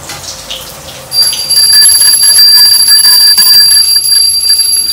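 Food frying in hot oil sizzles quietly. About a second in, a bell starts ringing loudly and continuously, a shrill steady ring that wavers quickly in loudness.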